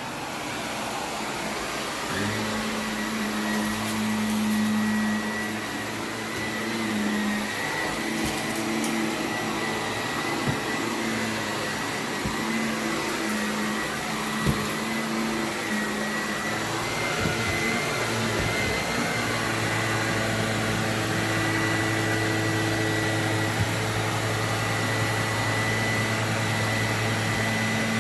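Shark upright vacuum cleaner running over carpet, a steady motor hum with a high whine, its lower tones shifting a little. A few short clicks come through partway through.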